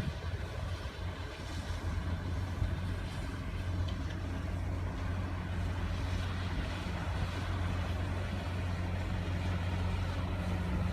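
Passenger ship's diesel engines running with a steady low drone while the ship comes alongside the pier.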